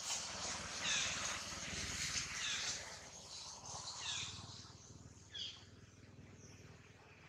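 A series of four or five short, high animal calls, each falling in pitch, about a second and a half apart and growing fainter, over steady outdoor background noise.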